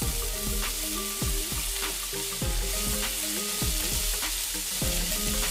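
Diced onions and potatoes sizzling steadily in hot oil in a frying pan.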